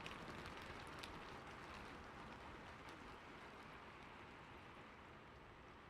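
Faint, steady rainfall with a few soft drop ticks, slowly fading out.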